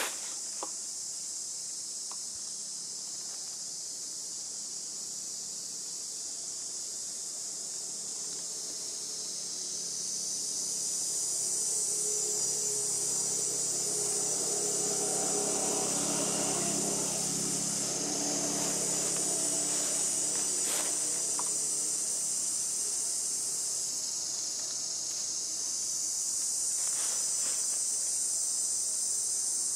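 Steady high-pitched buzzing of an insect chorus in the forest canopy. A lower hum with several tones swells and fades in the middle.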